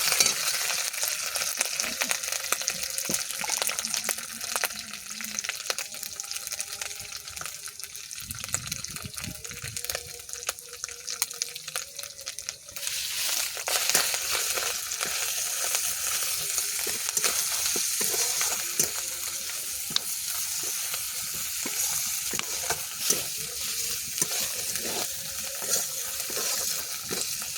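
Onions, ginger and ground turmeric and chilli sizzling in hot oil in a pan as the masala is stir-fried. Frequent short scrapes and knocks of the stirring utensil against the pan sound over the sizzle. The sizzle gets louder about halfway through.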